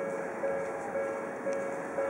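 Japanese railway level-crossing warning bell ringing, a repeated clang about two a second, signalling that a train is approaching or passing.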